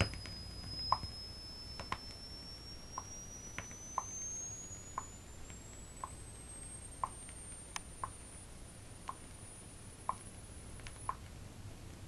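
Test-tone frequency sweep from a stereo demonstration LP, played through loudspeakers: a faint, thin tone gliding slowly upward from 5,000 to about 10,000 cycles and stopping near the end. About a dozen light clicks are scattered through it.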